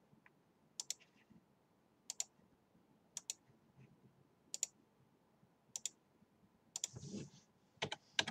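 Faint clicks of a computer mouse and keyboard, a quick pair of clicks about once a second, seven times in all.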